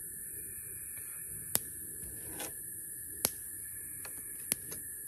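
Steady high-pitched chorus of night insects, with three sharp clicks about a second and a half apart.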